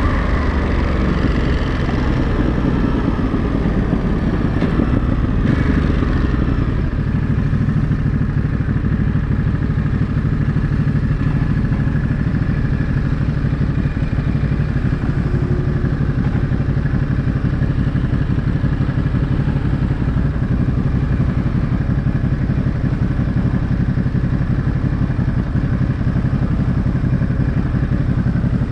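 Ducati Monster 937's 937 cc Testastretta L-twin engine running at a steady, low engine speed, heard from the bike itself. There is more noise in the first few seconds, then the engine note holds nearly constant.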